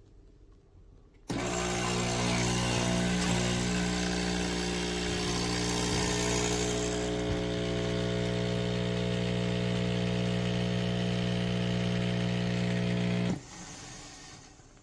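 Nespresso Lattissima Pro espresso machine's vibratory pump running with a steady buzzing hum and hiss for about twelve seconds, then stopping abruptly. The hiss eases off about halfway through.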